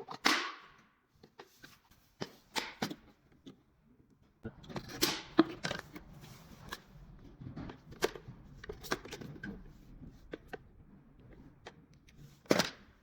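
Plastic parts of a poultry drinker or feeder bucket being handled and fitted together: scattered light clicks and knocks with some rubbing between them, and a sharper knock near the end.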